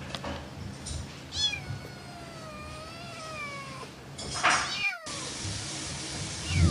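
Domestic cat meowing: one long, drawn-out meow that wavers in pitch, starting about a second in, then a shorter, harsher meow around four seconds in.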